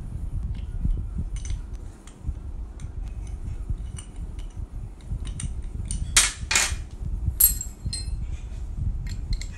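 Small metallic clicks and scrapes of a brass tap valve being screwed back into a chrome sink tap body by hand, with three louder metal clinks in the second half.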